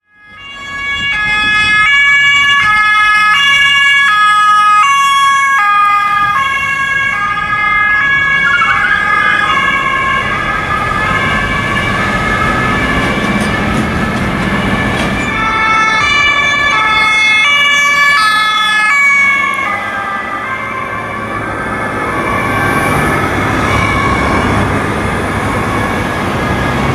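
Two German police cars' two-tone sirens (Martinshorn) alternating high and low as they pass one after the other, the first for about nine seconds and the second from about fifteen seconds in, over road and engine noise. One car's tyres squeal briefly as it turns into the junction.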